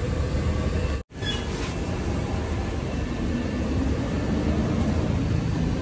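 Steady low rumble with hiss, like vehicle traffic or workshop machinery, broken by a short dropout about a second in.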